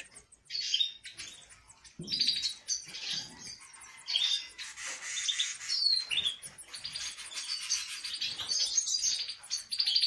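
Red siskin nestlings peeping as their mother feeds them: rapid, high-pitched begging cheeps in bursts that become almost continuous in the second half, with a soft thump about two seconds in.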